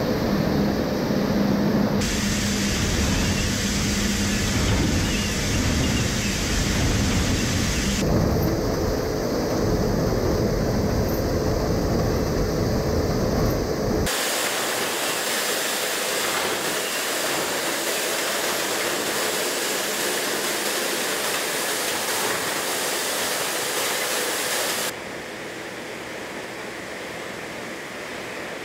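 Four-post hydraulic shaker rig working a pickup truck: a heavy, noisy rumble with a steady hum. About 14 s in the sound changes abruptly to an even hiss without the low rumble, and it gets quieter near the end.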